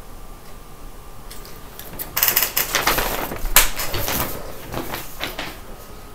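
A large sheet of paper rustling and crinkling as it is handled and moved close to the microphone, starting about two seconds in and dying away after about five seconds.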